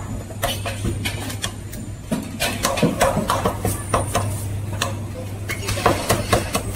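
Meat cleaver chopping roast meat on a thick round wooden chopping block: a quick, uneven run of sharp knocks, several a second, over a steady low hum.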